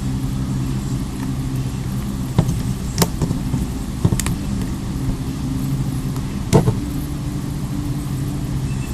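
Plastic snap clips of a Samsung Galaxy S Lightray's housing popping under a pry pick run along the seam: five sharp clicks, the loudest near the end. A steady low engine-like hum runs underneath.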